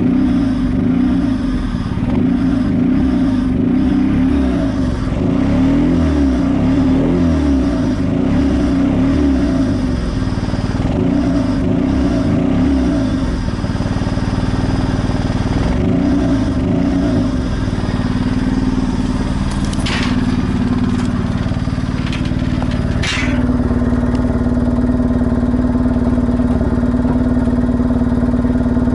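Isuzu Impulse RS AWD's turbocharged engine running unevenly, its note wavering, while running way too rich. Two short clicks about two-thirds of the way through, after which the engine settles to a steadier, even note.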